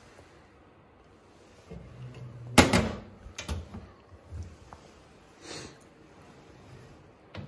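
Painted steel cabinet door in a Boxford lathe's base stand swung shut with one loud metallic bang about two and a half seconds in, followed by a couple of lighter clicks from its latch.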